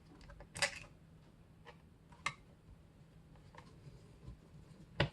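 Laptop reassembly with a small screwdriver: a few light, scattered clicks and taps of plastic and metal, with a brief scrape early on and a sharper click near the end, over a faint low hum.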